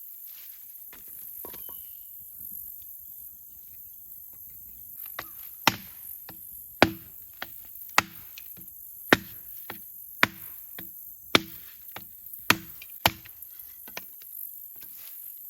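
Wood being chopped: about eight sharp strikes, roughly one a second, each with a short hollow knock, beginning a little before halfway and stopping near the end, with a few lighter taps between them.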